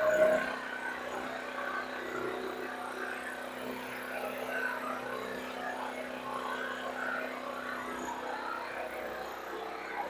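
Titan Industrial generator's small engine running steadily with its air breather off, a constant hum under a rough, busy intake noise.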